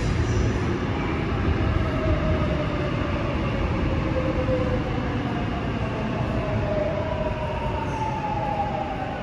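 Seoul Subway Line 8 electric train pulling into an underground station and slowing down: steady wheel and running rumble with a motor whine that slowly falls in pitch, getting quieter near the end.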